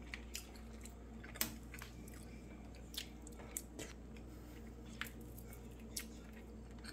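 A person eating: soft chewing with scattered light clicks of a metal fork against a food bowl, the sharpest about one and a half seconds in.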